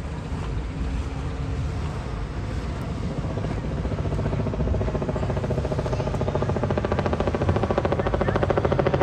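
A helicopter approaching overhead: its fast rotor beat grows steadily louder from about a third of the way in.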